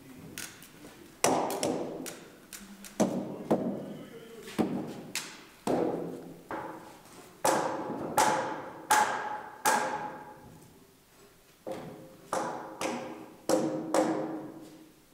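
Heavy knocks on hewn timber logs, an irregular string of about one or two a second, each ringing briefly and dying away over about a second.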